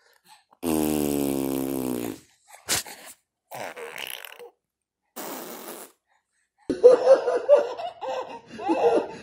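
A loud, buzzing fart-like sound lasting about a second and a half, followed by a few short, quieter noises. Near the end, laughter.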